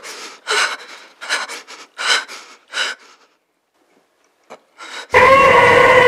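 A woman's ragged, heavy breathing and gasps, about six breaths in three seconds, then a short pause. About a second before the end a man's loud, nasal, held "eeeeh" screech, the "most annoying sound in the world", starts abruptly and holds at a steady pitch.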